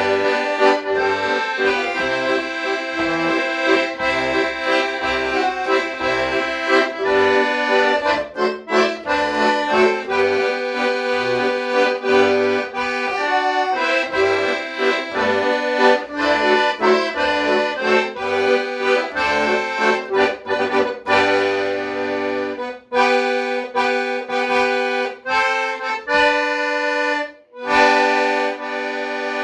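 Piano accordion playing a tune, melody over chords, with bass notes underneath that drop out after about twenty seconds. The playing breaks off briefly twice near the end.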